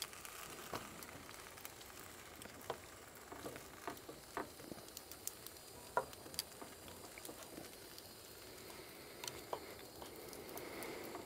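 Food sizzling faintly in a frying pan, with scattered sharp pops and crackles through it.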